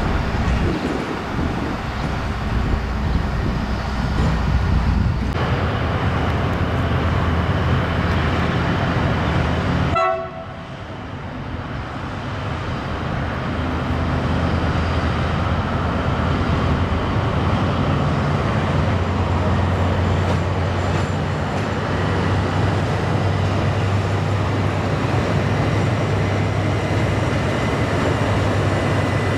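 PKP Cargo diesel locomotive running under power as it hauls a long train of cement hopper wagons past, with a steady low engine drone and the noise of the wagons rolling. The sound breaks off and restarts about ten seconds in, then builds up again.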